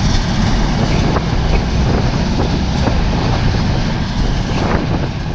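Motorcycle riding along a road: steady, heavy low rumble of wind and road noise on the microphone, with the bike running underneath.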